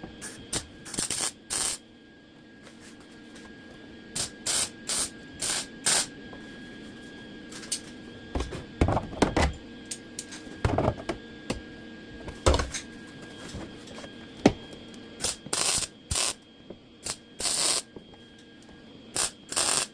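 MIG welder laying short tack welds: about twenty brief bursts in small clusters, tacking a floor and rocker patch panel in place.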